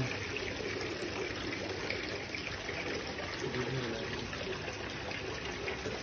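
Steady trickling and splashing of water from a tiered sandstone fountain, several small streams pouring from pots and a central spout falling into its basin.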